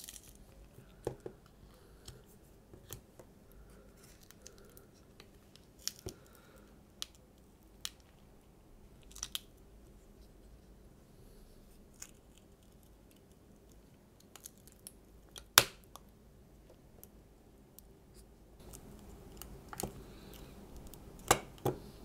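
Sparse small clicks and taps of metal tweezers and fingers against the phone's battery and frame as a glued-in battery is worked loose and lifted out. One sharper click comes a little past two-thirds through, and a few more cluster near the end.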